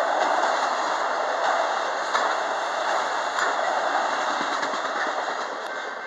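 Freight train of autorack cars rolling past close by: steady noise of steel wheels on the rails with scattered clicks. It eases off near the end as the last car clears the crossing.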